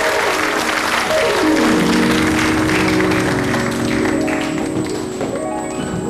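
Audience applauding, the clapping thinning out as music comes up with cascading runs of notes stepping down and back up.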